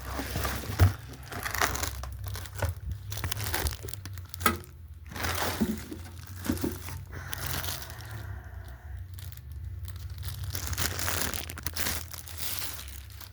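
Packaging crinkling and rustling in irregular bursts, with a few sharp clicks, as a hot air station is pulled out of its box and unwrapped.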